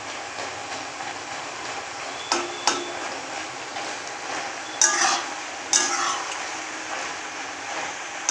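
Metal spatula stirring and scraping a wet mushroom-and-prawn mixture in an aluminium kadai, with a few sharp knocks of the spatula against the pan about two and a half, five and six seconds in, over the steady sizzle of the frying pan.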